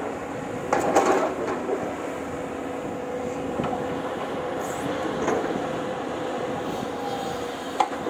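Diesel engines of hydraulic crawler excavators running steadily under digging load, with a brief louder burst about a second in and a sharp click near the end.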